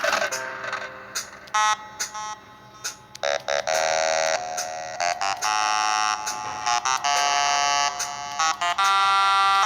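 Arranger keyboard sounding a bright, buzzy synth voice: a few short notes, then from about three seconds in a run of held notes and chords that start and stop abruptly, with a few faint clicks.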